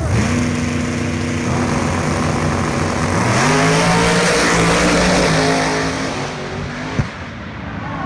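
Two drag-racing cars held at high revs on the starting line, then launching side by side about three seconds in. The engines climb in pitch and run at full throttle, then fade as the cars pull away down the strip. A single sharp click comes near the end.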